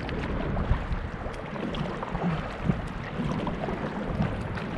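Steady wind and water noise around a kayak, with a few small knocks and rustles from movement aboard.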